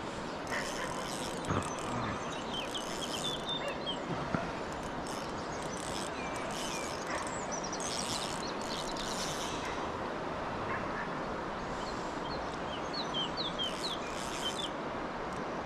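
Steady outdoor background noise with a few short bird chirps about three seconds in and again near the end, and brief faint high hisses here and there.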